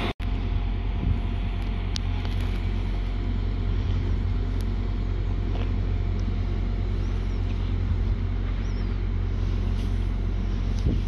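Transport for Wales Class 175 diesel multiple unit running slowly into the platform, its engines a steady low drone. The sound drops out for an instant just after the start.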